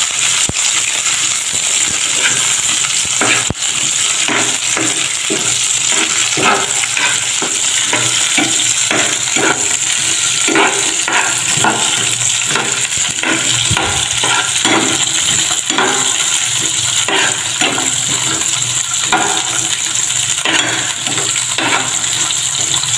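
String beans, garlic and chili sizzling in hot oil in a metal frying pan, with a metal spatula scraping and clinking against the pan several times a second as they are stirred.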